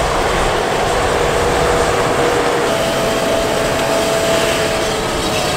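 Fendt tractor running steadily as it pulls a White corn planter across the field: an even rush of noise with a faint steady whine.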